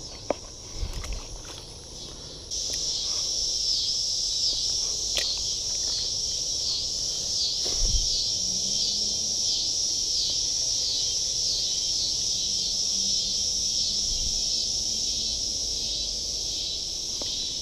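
Chorus of insects outdoors: a steady, high, pulsing buzz that starts abruptly and gets louder about two and a half seconds in, then holds. A few faint knocks from handling the rod sit under it.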